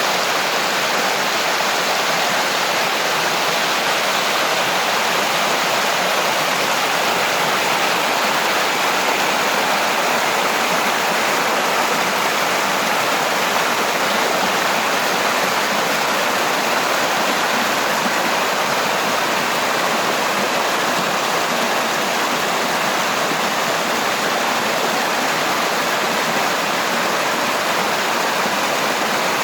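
Small waterfall on a stream, water falling and rushing in a steady, even roar.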